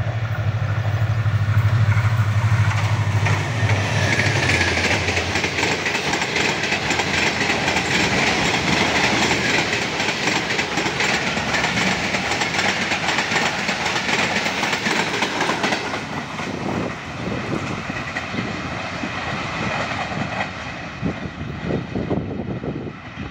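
Green Line Express passenger train passing at high speed: a low drone from the locomotive that drops in pitch as it goes by in the first few seconds, then a loud rush of coaches with wheels clattering over the rail joints, fading and breaking up as the train draws away.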